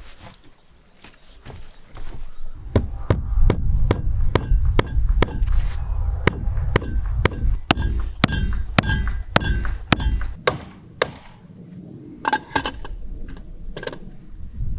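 A regular series of sharp strikes, about two a second, with a brief metallic ring on some. They stop about eleven seconds in, and a few more follow near the end.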